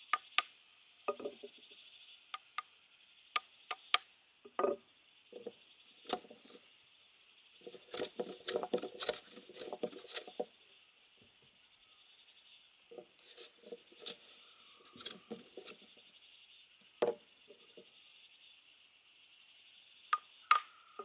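Hand tools working wood by hand: scattered knocks and taps with short bouts of scraping, busiest about eight to ten seconds in. Behind it runs a steady high insect chirring with short repeated chirps.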